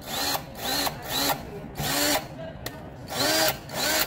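Makita DF457D cordless drill's motor run unloaded, with its chuck off, in about six short trigger pulls, each one spinning up and winding straight back down. It is a test run of the drill after its damaged parts were replaced.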